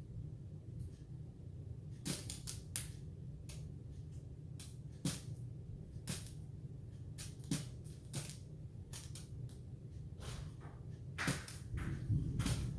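Scattered light clicks and knocks, irregularly spaced, over a low steady hum.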